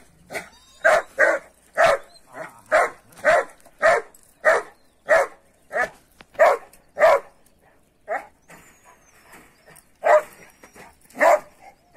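Kangal dog barking in a steady run, about one to two barks a second, breaking off about seven seconds in, then a single bark and two more near the end.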